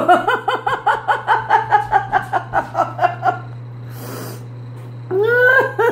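A person laughing, a quick run of ha-ha pulses at about five a second lasting about three seconds, followed by a short breath and a falling voiced laugh sound near the end.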